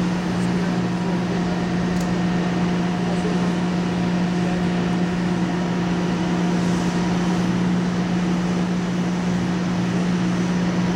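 Steady hum of heavy machinery on a drilling-rig site: a constant low drone with an even mechanical noise over it, unchanging throughout.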